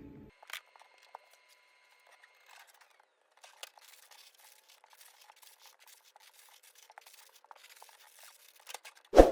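Faint scattered clicks and rustling, then one loud thump near the end.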